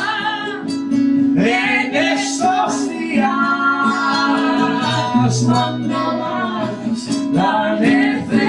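Guitar music with a melody line over it.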